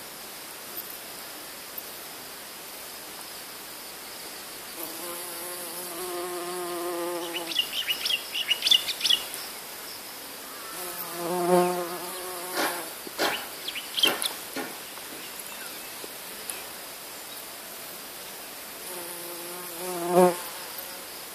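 Bumblebee buzzing in flight three times: for a couple of seconds about five seconds in, again about eleven seconds in, and louder near the end as it flies close. Sharp clicks and ticks come in between, over a faint steady high hiss.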